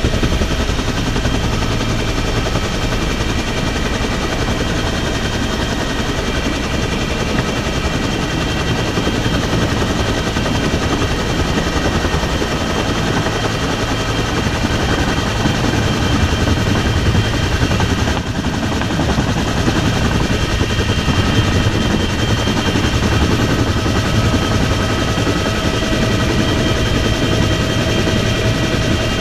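Military helicopter running, heard from inside its open-door cabin: steady rapid rotor chop under a constant high engine whine.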